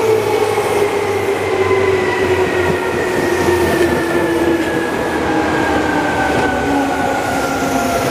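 Seibu 2000 series electric train running past at close range: wheels rumbling on the rails under a whine from the drive that falls slowly and steadily in pitch.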